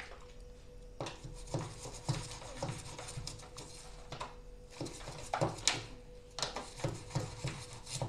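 Toothbrush scrubbing inside the drain-filter housing of a front-loading washing machine with warm detergent water, in short, irregular rubbing strokes that begin about a second in.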